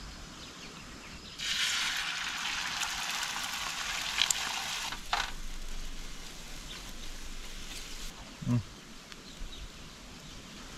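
Beaten eggs hitting a hot oiled griddle on a camp stove: a sizzle that starts suddenly about a second and a half in, then dies down gradually as they cook, with a couple of sharp clicks partway through.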